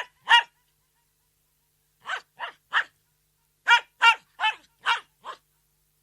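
Poodle barking in short, sharp barks in bursts: one bark at the start, three softer barks about two seconds in, then a quick run of five barks near the end, the last one quieter.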